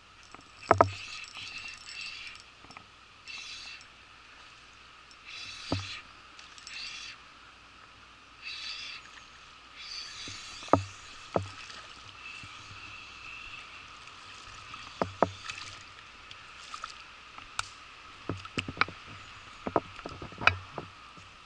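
Spinning reel cranked in short bursts during a topwater lure retrieve, mixed with water splashes and sharp knocks. The knocks and splashes come thicker near the end, in shallow water at the bank.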